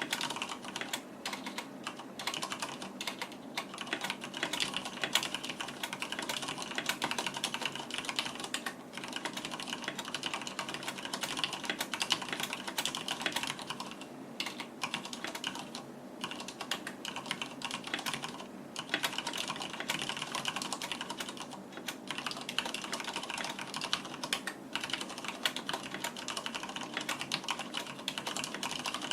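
Continuous fast typing on a Deck Hassium mechanical keyboard with Cherry MX Red linear switches and PBT keycaps: a dense clatter of key presses, with a few brief pauses.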